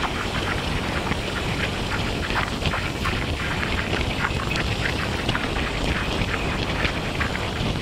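Road and wind noise from a moving vehicle, with wind buffeting the microphone and many short, irregular crackles.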